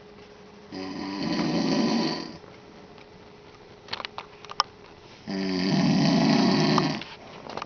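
A man snoring in his sleep: two long snores about four seconds apart, each lasting under two seconds, with a few small clicks between them.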